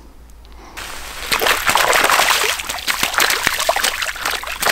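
A cutbow trout splashing hard in shallow lake water at the shoreline as it is let go. A quick run of loud splashes starts about a second in.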